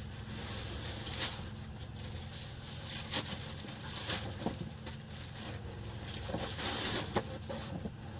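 Scattered clicks and short rustling sounds, as of objects being handled, over a steady low hum.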